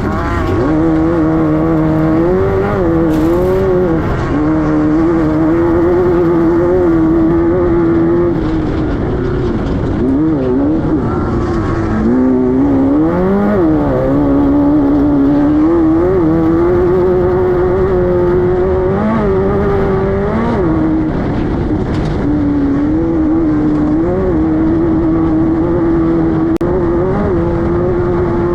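Class 5-1600 race car's air-cooled 1600cc Volkswagen flat-four running hard. Its note holds mostly steady, dipping and climbing again a few times with throttle and gear changes, most deeply about twelve seconds in.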